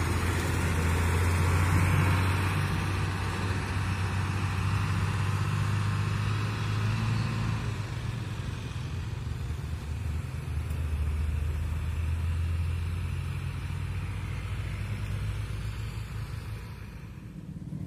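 Motor vehicle engine running steadily: a low hum, with noise over it, that eases slightly in level a few times.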